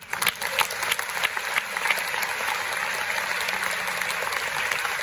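Audience applauding: a few scattered claps at the start quickly fill out into steady applause.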